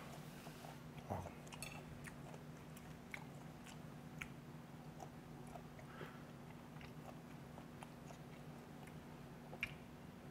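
A person chewing a mouthful of food with the mouth closed, close to a lapel microphone: faint, soft, irregular clicks and smacks. A few slightly louder clicks come near the end as another bite goes in.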